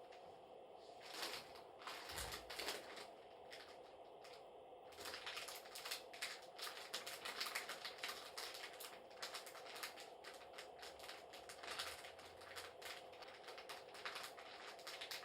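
Plastic biscuit-packet wrapper being crinkled and squeezed as a Foley stand-in for a crackling campfire. At first there are a few scattered crackles; from about a third of the way in they turn into dense, irregular crackling.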